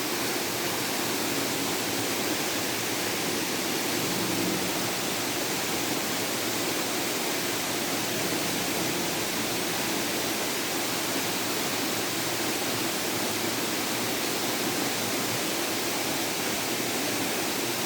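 Steady, even rush of a waterfall, falling water with no change.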